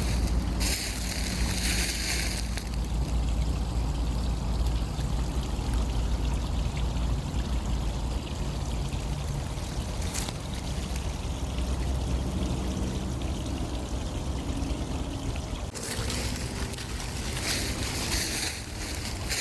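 Wind buffeting the microphone: a steady low rumble under a rushing hiss, with louder hissing stretches briefly near the start and again near the end.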